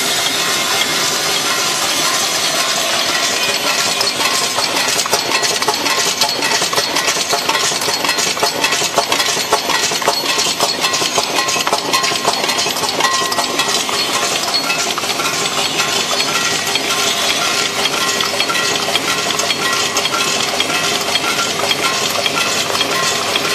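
SF-60K automatic screw counting and packing machine running, its vibratory bowl feeder rattling the screws in a dense, continuous stream of small metallic clicks over a steady machine hum.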